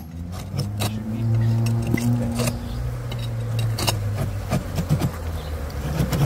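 Honey bees buzzing around an opened wild colony in a brick wall: a steady hum that swells about a second in, with scattered light taps and clicks from work at the brickwork.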